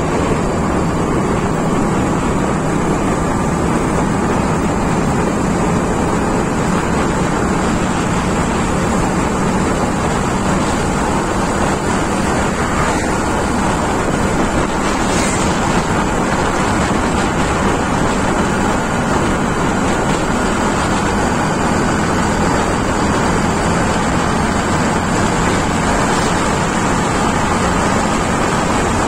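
Steady rush of wind on the microphone over the road noise of a vehicle cruising on asphalt.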